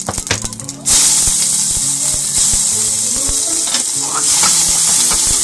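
Cumin seeds crackling in hot oil in a steel pot, then about a second in, chopped onion and green chillies go in and the oil breaks into a loud, steady sizzle, with a wooden spatula knocking against the pot as it stirs.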